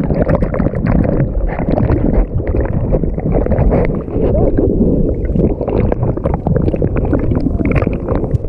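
White-water rapids of the Kaituna River churning and splashing loudly around a raft, a dense steady rush of water broken by frequent splashes.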